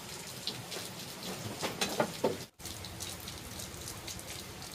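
Steady pattering of water with scattered drip-like ticks. A few louder, briefly pitched sounds come just before the sound drops out for an instant about two and a half seconds in.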